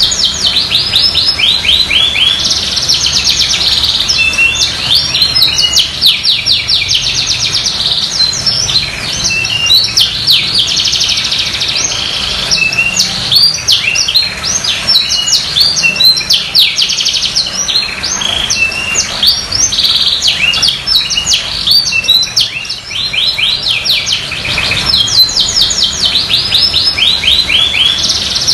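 Domestic canary singing continuously in full song: long, fast trills of repeated high notes, phrase after phrase with only short breaks.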